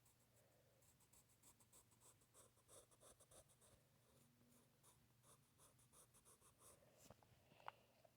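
Faint scratching of quick drawing strokes on paper, several strokes a second, as a cat is sketched. A short high squeak sounds near the end.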